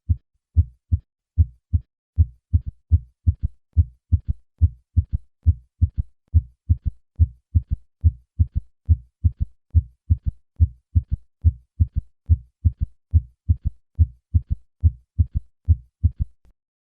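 Heart sounds heard through a stethoscope: a steady run of short, low, dull thumps, a first and second heart sound followed by an extra early-diastolic third heart sound, giving a triple gallop rhythm. Past age 40 this ventricular gallop usually indicates heart failure, though it can be a normal finding in children and younger adults.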